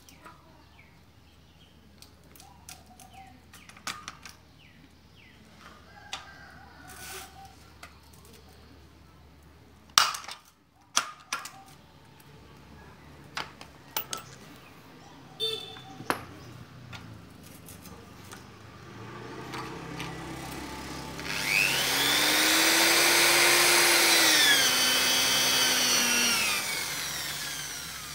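Corded electric drill boring into an aluminium frame, its motor whine rising as it speeds up, holding, then falling as it slows for about six seconds in the second half, then starting again at the very end. Before that, scattered sharp clicks and one loud snap about ten seconds in, as blind rivets are set with a hand riveter.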